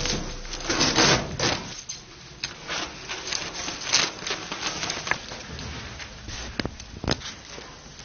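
Scissors cutting thin sheet material: an irregular run of crisp snips and rustles, loudest in the first two seconds.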